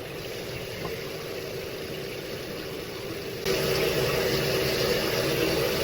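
Tap water running steadily into a sink, turning suddenly louder about three and a half seconds in.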